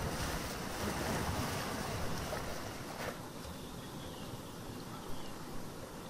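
Ocean surf: a wave breaks and washes in as a loud rush, then eases off to a quieter wash about three seconds in.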